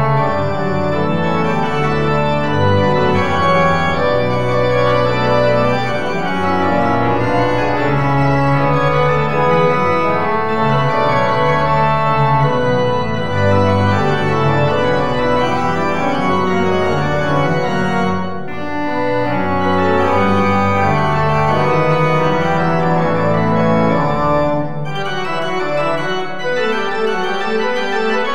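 Church organ playing full, sustained chords with a deep pedal bass underneath; the bass drops out near the end, leaving the upper chords.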